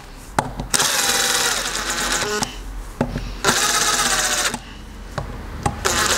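Impact wrench driving the camshaft bearing-cap bolts down on a BMW M57 diesel cylinder head. It runs in short bursts of about a second each: two, then the start of a third near the end. Its whine rises as it spins up and drops as it stops.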